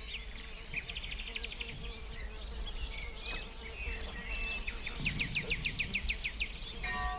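Small birds chirping and singing, with two fast trills, over a low steady hum. Bell-like ringing tones begin just before the end.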